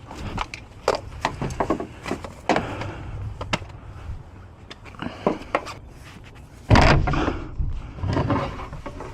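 Locksmith working on a locked car door: a run of small clicks, taps and scrapes of metal tools, with a louder dull thump and rustle about seven seconds in.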